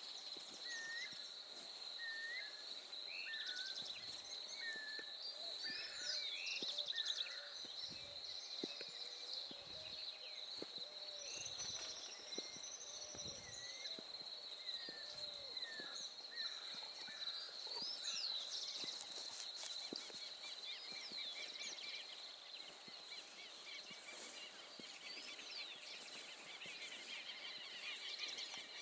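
Several wild birds calling and singing in a dawn chorus, short chirps and whistled notes from different directions, over a steady high insect trill.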